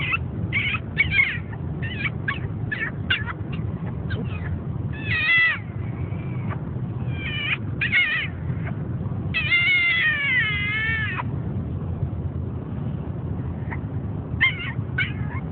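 Teacup Pomeranian whining: a string of short high-pitched whines, then longer wavering cries, the longest about two seconds, with a few short whines again near the end. A steady low car road rumble runs underneath.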